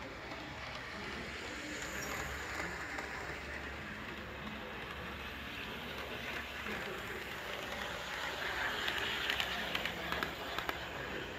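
Model trains running on a layout, with people talking faintly in the background. A run of light clicks comes near the end.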